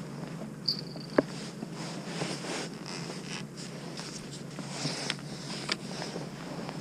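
Small clicks and knocks from a fishing rod and spinning reel being handled, the sharpest click about a second in, over a faint steady hiss.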